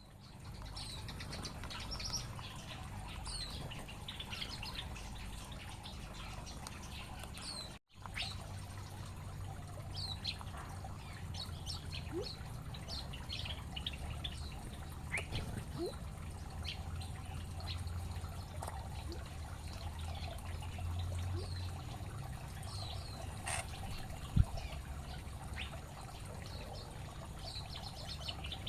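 Small aviary birds chirping: frequent short, high chirps over a steady low rumble, with one sharp knock near the end.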